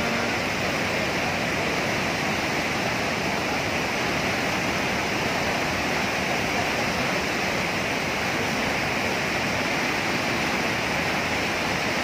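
Dhuandhar waterfall on the Narmada river, its muddy water in high flow pouring over and between rocks: a steady, even rush of falling and churning water.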